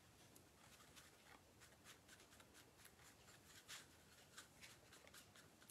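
Near silence with faint, irregular brush strokes: a paintbrush dabbing and stroking acrylic paint on the palette and canvas.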